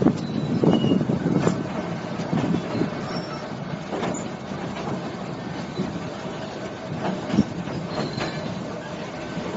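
Passenger train running across a metal trestle bridge, heard from an open carriage window: a steady rattle and rumble of the carriages, with irregular knocks from the wheels and a few short high squeaks.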